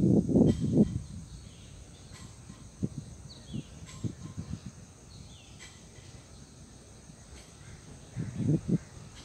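Outdoor ambience with a steady high insect drone and a few short bird chirps. Low rumbles buffet the microphone in the first second and again near the end.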